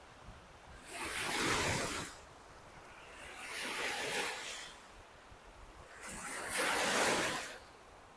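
Lake Michigan waves breaking and washing onto a beach, three times, each surge swelling and fading over a second or two with a low hiss of water between them.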